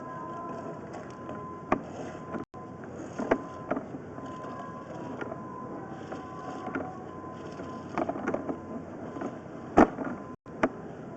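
Push cable of a sewer inspection camera being fed down a floor drain cleanout: scattered knocks and clatters as the cable and camera head hit the pipe, over a steady faint whine.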